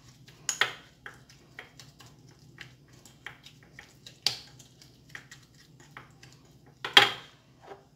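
Plastic spoon stirring a moist mix of grated cucumber peel and rice flour in a small ceramic bowl: irregular soft clicks and taps against the bowl. Louder knocks come about half a second in, around four seconds in and about seven seconds in.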